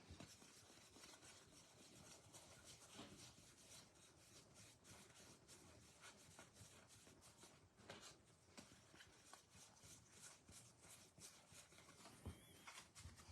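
Near silence with faint, scattered soft ticks and rubbing: baseball trading cards being handled and flipped over one by one.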